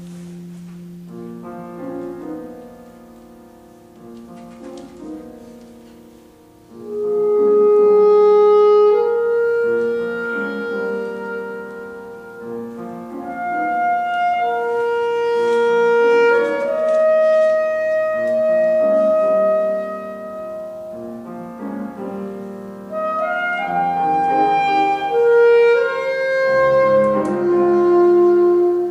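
Chamber trio of violin, saxophone and piano playing a contemporary classical piece. Soft for the first few seconds, then about seven seconds in the saxophone comes in loud with long held notes over piano.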